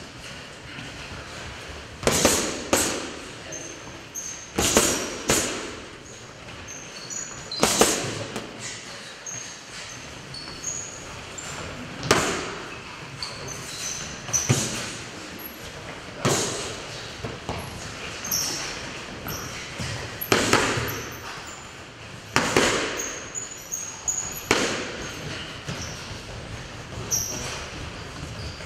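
Boxing gloves smacking into focus mitts, and at times a heavy bag: single punches and quick two- or three-punch combinations about every two seconds, echoing in the hall, with short high squeaks between them.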